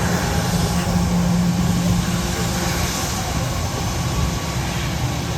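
Engine running steadily at a constant low hum, with no revving or change in pitch.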